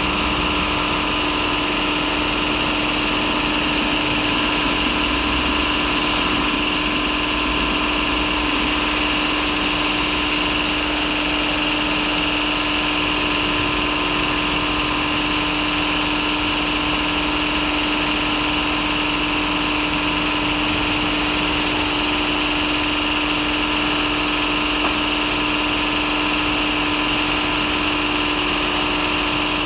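WashTec SoftCare Pro automatic car wash machinery running, a steady mechanical hum with a constant high whine over it that does not change.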